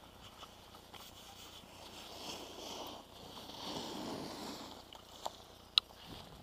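Quiet swishing and scraping of skis shuffling on packed snow, swelling around the middle. Two sharp clicks come near the end, the second the louder.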